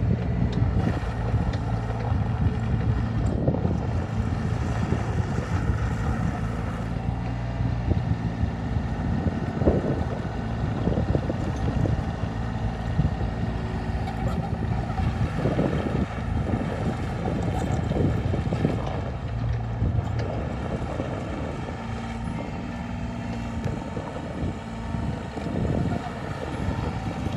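Cat 303CR compact excavator's diesel engine running steadily under load while the machine tracks and turns on gravel, with irregular crunches and clanks from the tracks and undercarriage.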